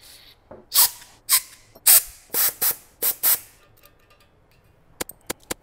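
Aerosol brake cleaner sprayed through its extension straw in a series of short hissing bursts into an engine's piston oil squirter, flushing old gunk out of its oil passage. A few sharp clicks follow near the end.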